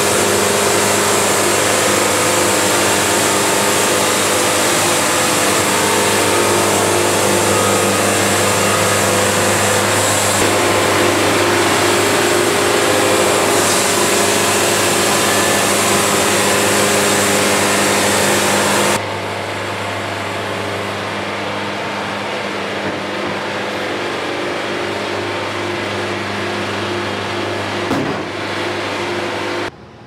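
Hydraulic band sawmill sawing through a spalted ambrosia maple log, its engine running steadily under load with the hiss of the blade in the wood. About two-thirds of the way through, the cutting hiss drops away suddenly and the engine runs on more quietly. A single knock comes near the end, then the sound stops abruptly.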